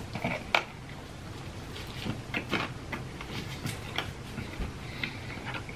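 Close-up mouth sounds of someone biting into and chewing a Burger King Ghost Pepper Whopper, with crispy jalapeño bits in it: scattered soft crunches and wet clicks, the sharpest about half a second in.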